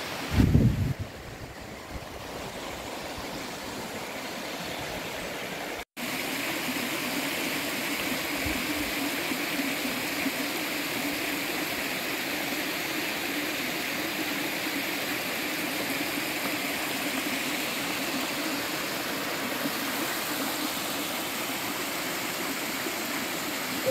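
Shallow river water rushing steadily over rocks, with a brief low thump about half a second in.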